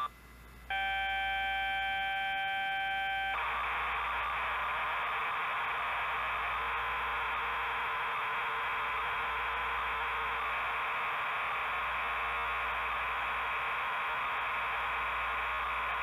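Tandy Model 102 cassette-save signal being recorded onto a CCR-82 tape recorder. A steady electronic tone with overtones, the header, drops out for under a second at the start and then resumes. About three seconds in it turns into a dense, even, hissing warble as the program data is written to tape.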